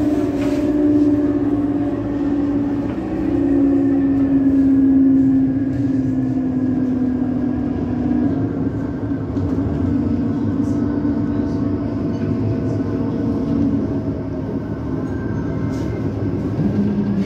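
Tram running on its rails, heard from inside the car: a steady rumble of wheels and running gear, with a hum from the electric drive whose pitch steps down several times.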